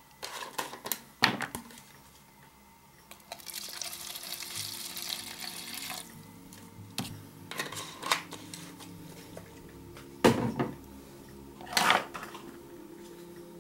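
Cleaning liquid handled and poured from a plastic bottle over brass clock mainspring barrels: clicks and knocks of handling, with about three seconds of pouring hiss a few seconds in.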